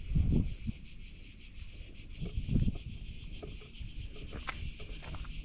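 A chorus of cicadas in the pines, a steady high pulsing buzz. There are low rumbles on the microphone just at the start and again about two and a half seconds in.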